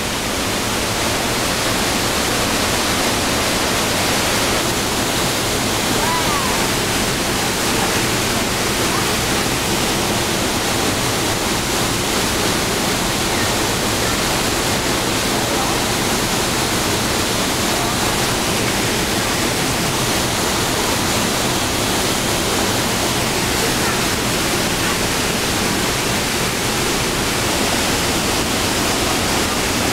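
Trümmelbach Falls, a waterfall pouring through a narrow rock gorge: a loud, steady rush of water with no let-up.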